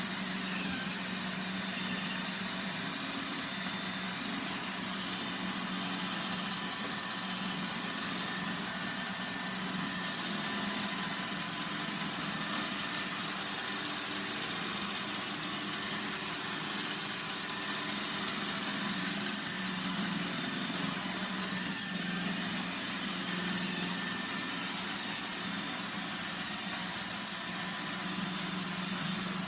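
iRobot Roomba 960 robot vacuum running, its motor and brushes giving a steady hum. A brief loud clatter of clicks comes near the end.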